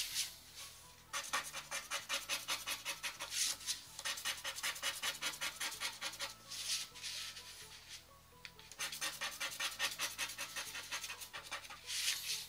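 Scratch-off coating being scraped off a Lotto Super 7 scratch card in runs of quick back-and-forth strokes with short pauses between them, over faint background music.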